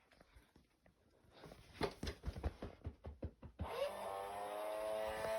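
Halloween animatronic's small electric motor: a run of irregular clicks and knocks, then about three and a half seconds in the motor starts with a short rising whine and settles into a steady buzzing hum. The head does not rise, which the owner puts down to a missing belt.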